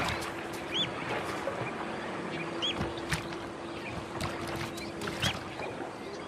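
Water splashing and sharp snaps as crocodiles tussle in the shallows. A short arched bird chirp repeats several times over it, with a faint steady hum underneath.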